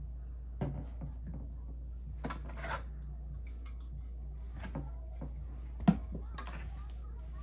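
Handling noises while unpacking: scattered clicks, taps and rustles of packaging and hard plastic parts, over a steady low hum. There is a short rustle around two to three seconds in, and one sharp knock about six seconds in.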